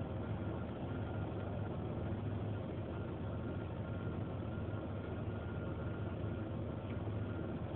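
1993 Ford Explorer's 4.0-litre V6 idling roughly with a misfire, running steadily with a slightly uneven beat.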